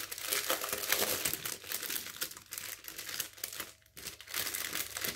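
Small clear plastic zip-lock bags of diamond-painting drills crinkling as they are handled, with a short lull a little before the end.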